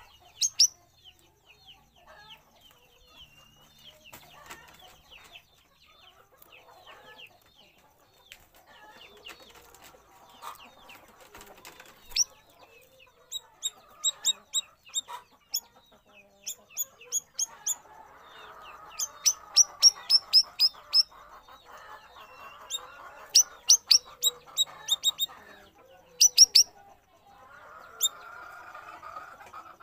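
Cucak rawis bulbul singing in bursts of short, sharp whistled notes, with quick runs of them in the second half. A lower chattering sits under the song at times.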